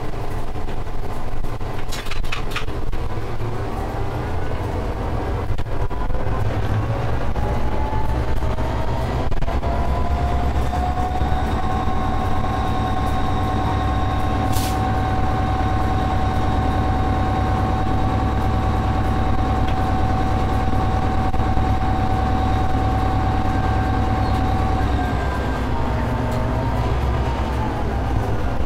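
Diesel freight train heard from the cab while running along the main line: a steady low rumble with a whine that rises in pitch for the first ten seconds or so as it picks up speed, holds steady, then drops and wavers near the end. A few sharp clicks cut through, the clearest about halfway.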